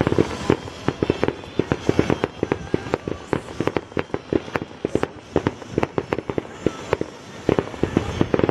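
Fireworks display: a rapid, irregular string of bangs and crackling reports, several a second, from low bursts of gold crackling shells.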